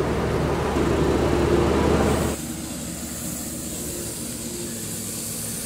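GrimmerSchmidt 175 tow-behind air compressor running steadily at close range. About two seconds in it cuts to a quieter, steady hiss of compressed air blowing out through a lawn sprinkler head, with the compressor's hum faint underneath.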